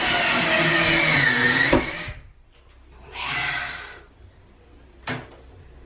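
Cordless drill driving a screw through a shelf bracket into the wall, the motor's pitch sinking as the screw seats, then stopping abruptly about two seconds in. A shorter run of the drill follows about three seconds in, and a sharp click near the end.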